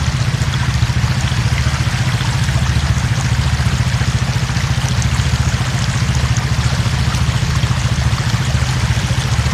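A vehicle engine idling steadily, with floodwater rushing and trickling down the trail over it.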